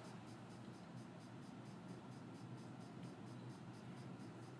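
Near silence: faint room tone with a steady low hiss.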